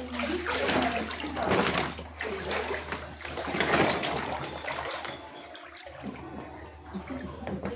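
Floodwater sloshing and splashing around the legs of someone wading through a flooded room, in uneven surges, over a low steady hum.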